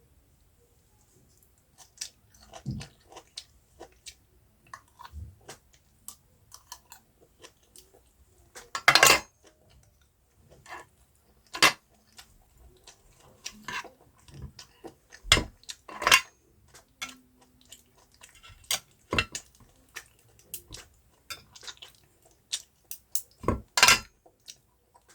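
Eating sounds: irregular clicks and knocks of utensils against a dish with chewing, several louder clinks standing out among softer ones.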